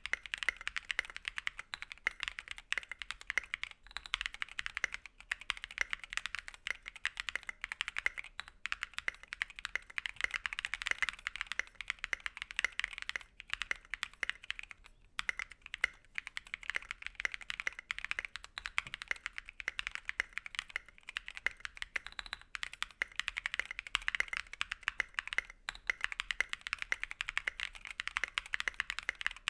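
Fast continuous typing on a mechanical keyboard fitted with stock, unlubricated Durock POM linear switches: a dense stream of key clacks with only brief pauses.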